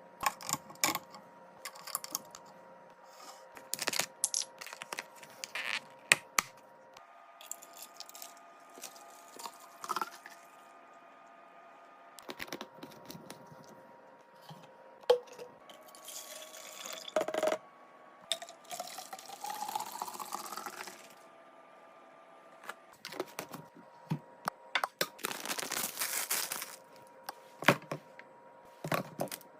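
Food packaging and containers handled in a kitchen: a series of clicks, knocks, rustles and tearing, with liquid poured into a container about two-thirds of the way through, rising in pitch as it fills.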